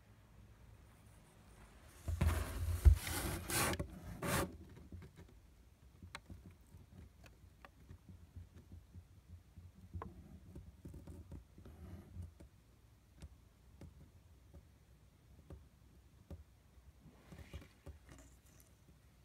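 Packing paper crinkling and cardboard rubbing inside a box, loudest for about two seconds starting two seconds in, then faint scattered rustles and small ticks.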